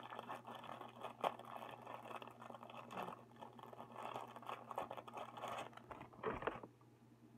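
Crisp toasted bread being torn and broken apart by hand: a run of crackling and scratching with small sharp snaps, which stops about six and a half seconds in.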